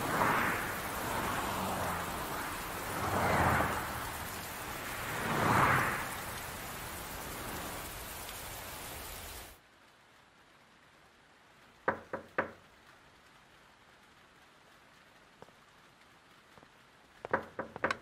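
Heavy rain pouring onto wet pavement, with rolling swells of thunder three times. It cuts off suddenly about nine and a half seconds in to a quiet room. Then come a quick set of three sharp knocks at a door, and another run of knocks near the end.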